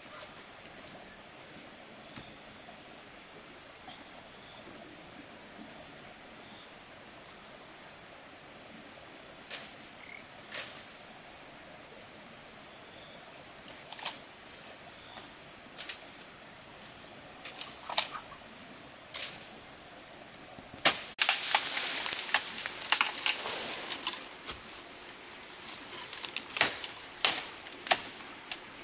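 Insects trilling steadily and high, with scattered sharp knocks and clicks, then a dense few seconds of clattering knocks and rustling about three-quarters of the way through.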